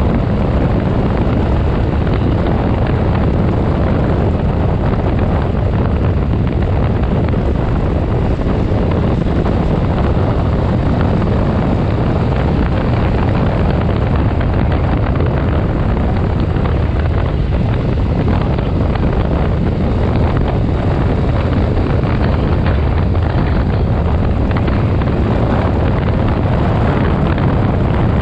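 Heavy, steady wind rushing over the microphone of a handlebar-mounted action camera on a moving motorcycle, dense and low with no letup.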